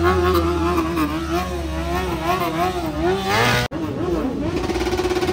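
A sport motorcycle's engine held at high revs during a rear-tyre burnout, its pitch wavering up and down. It cuts off abruptly a little past halfway, and another motorcycle engine takes over, revving.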